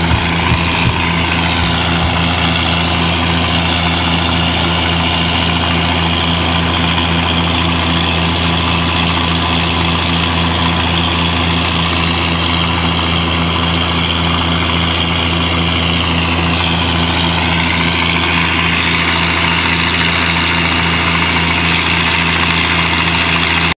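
Oliver 880 tractor engine running steadily under load, driving a New Holland 357 grinder-mixer through the PTO as it grinds corn fine. A constant drone of engine and grinder with no change in speed.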